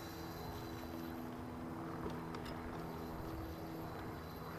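Steady hum of a small electric motor on a bass boat, a few fixed low tones running evenly under a light background hiss, with a faint tap about two seconds in.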